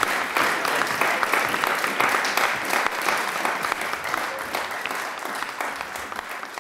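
Audience of diners applauding: many hands clapping in a dense, steady patter that slowly dies away over the last few seconds.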